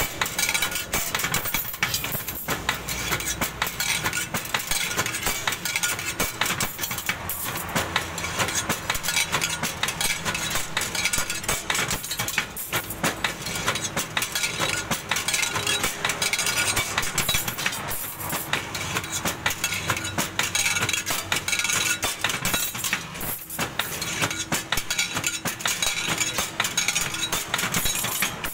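Stirrup bending machine running as it bends steel wire into stirrups: a steady machine hum under a dense, continuous metallic clinking and clatter.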